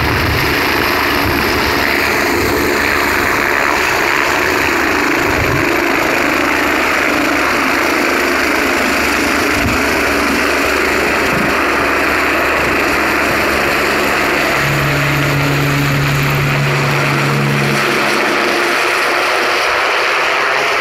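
Helicopter taking off: its engines and rotor run loud and steady as it lifts from the pad and climbs away overhead.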